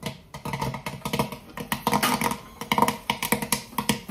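Popcorn kernels popping in hot oil in the kettle of a small movie-theater-style popcorn machine: a rapid, irregular crackle of many pops a second, the batch in full swing before it slows down.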